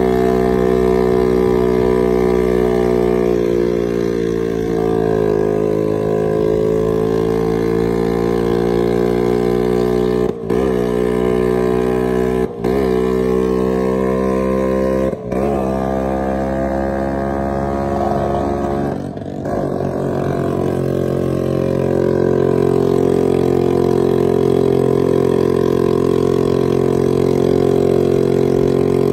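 Heavily loaded, junk-built Vespa scooter's two-stroke single-cylinder engine running under load with several riders aboard. The note breaks off briefly four times in the middle third, each time dipping in pitch and climbing back, then settles into a steady, slightly stronger note for the last third.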